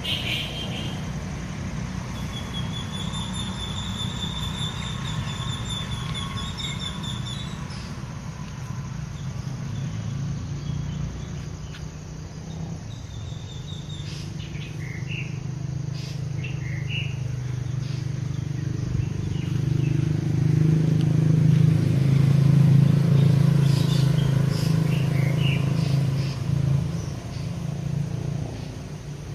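A steady low motor drone that grows louder about two-thirds of the way through, with small birds chirping over it and a short trill near the start.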